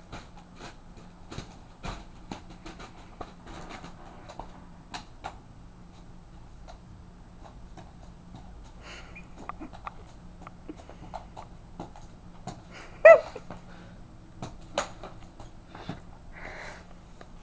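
Scattered soft taps and rustles of a kitten pawing at a feather toy on carpet beside a fabric cat tunnel, over a steady low hum. About 13 seconds in comes one short, loud, high-pitched squeak.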